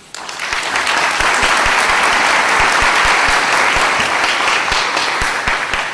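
Audience applauding: dense clapping from many hands that starts suddenly, holds steady and begins to die away near the end.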